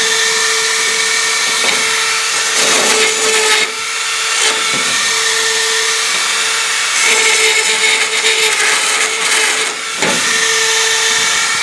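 Dremel rotary tool running at high speed with a steady whine, grinding out the screw holes in a door hinge plate to enlarge them. Its level dips briefly twice.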